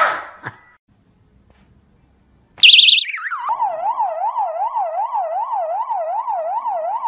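Electronic siren-type alarm that starts suddenly with a brief fast, high warble, glides down, then settles into a wailing tone rising and falling about two and a half times a second.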